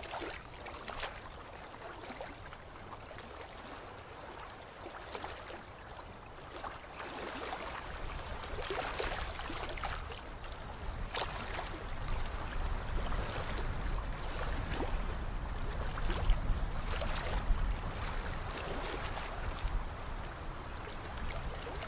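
Flowing, splashing water with a low rumble underneath, getting louder about eight seconds in.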